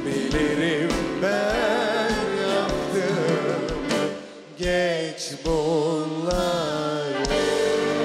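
A man and a woman singing a duet with a live orchestra, holding long notes with vibrato. The music drops away briefly about four seconds in, then the singing comes back.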